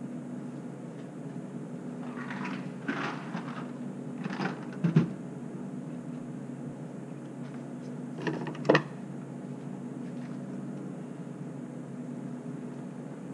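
Kitchen wall cabinet doors opening and shutting and things being taken out and set down: a run of clatters about two to three and a half seconds in, then sharp knocks about five and nine seconds in. A steady low hum runs underneath.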